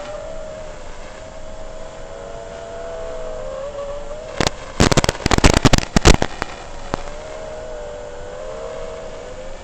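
FPV quadcopter's motors and propellers whining, several close tones that waver in pitch with the throttle. A cluster of loud crackling bursts cuts in midway, lasting about two seconds.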